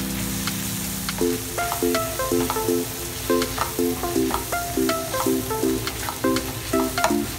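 Onions and green chillies sizzling as they fry in a pan, with a spatula stirring and clicking against the pan. Background music plays over it: a held chord, then short repeated notes about three a second from about a second in.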